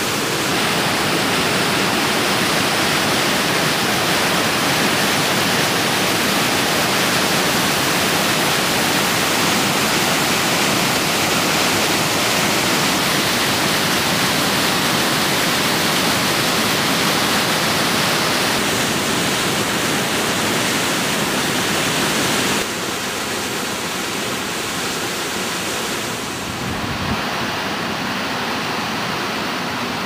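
Waterfall and whitewater rushing over rock: a steady, loud rush of water. It drops a little in level about three-quarters of the way through.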